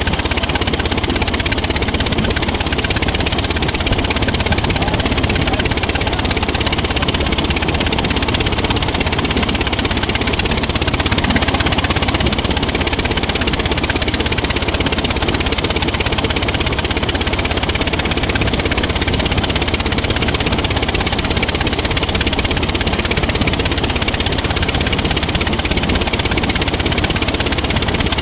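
Railroad speeder's engine running steadily as the track car rolls along the rails.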